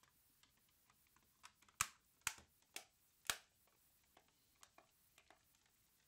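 Plastic housing of a PS5 power supply being pressed shut: a scatter of faint ticks, then four sharp plastic clicks about half a second apart, about two to three and a half seconds in, then a few faint ticks.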